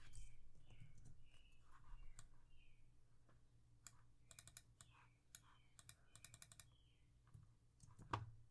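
Scattered computer mouse clicks and keyboard taps, soft and close, with one low thump near the end.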